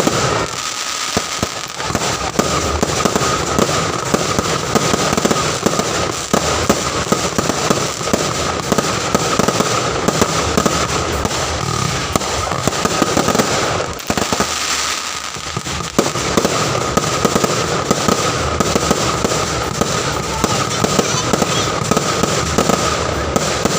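Fireworks display: a dense, continuous barrage of crackling and sharp bangs, thinning out briefly about a second in and again around fourteen seconds in.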